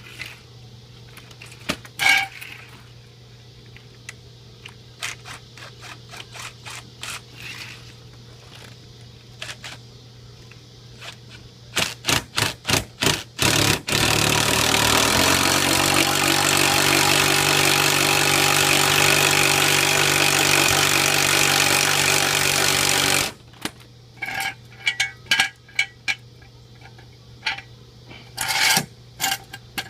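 Cordless 18-volt DeWalt XRP impact wrench running steadily for about nine seconds as it drives a car jack's screw, its pitch rising briefly as it spins up and then cutting off suddenly. Clicks and clunks of the tool and jack come before and after.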